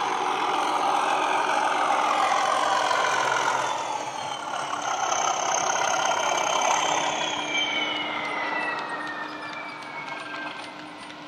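Bachmann OO gauge Class 37 model playing a recorded English Electric Class 37 diesel engine sound from its decoder and speakers as it runs past, with a high whistle that falls slowly in pitch. In the second half the engine sound fades and light clicking from the wagon wheels on the track comes through.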